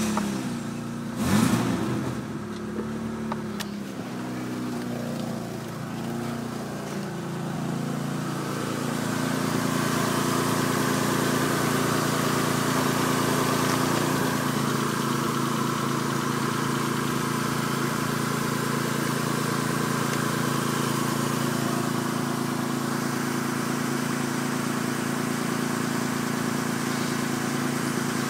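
Mitsubishi 6A13 2.5-litre V6 engine just started, its revs flaring and settling within the first few seconds, then idling steadily. It grows louder about eight seconds in and holds an even idle after that.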